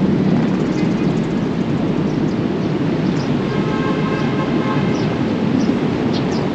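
Wind buffeting the microphone in the open air, a steady low rumble. A faint high tone of a few notes together comes in for a second or two near the middle.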